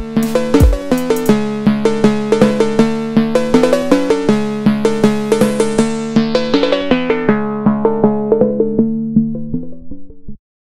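Electronic meme-song music: quick repeating synthesizer keyboard notes over a held low chord. A deep drum beat drops out under a second in. The bright top of the sound gradually fades away, and the music cuts off abruptly near the end.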